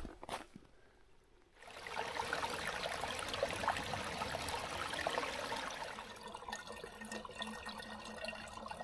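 Small mountain stream trickling and splashing over rocks, setting in after a quiet second and a half.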